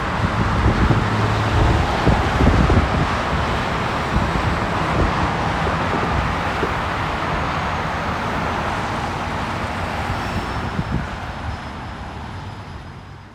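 Road traffic noise: passing cars with a steady low engine and tyre rumble, fading out near the end.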